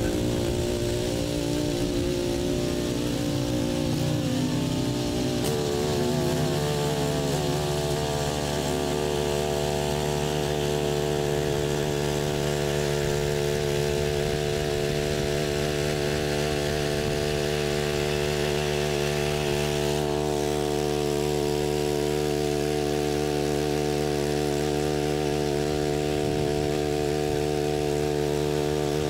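A walk-behind motor tiller (motoblock) runs under load while its tines churn the soil. The engine note wavers for the first few seconds, then holds steady.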